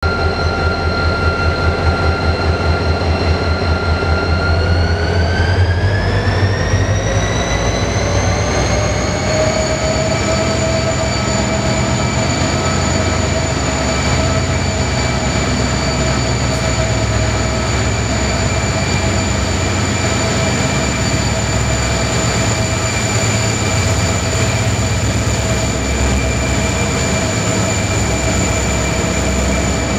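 Two EMD 16-645E3 V16 two-stroke diesel-electric locomotives, an XR class and a BL class, pulling away under power. A deep engine rumble pulses evenly at first, while a whine climbs over about five seconds, then both hold steady.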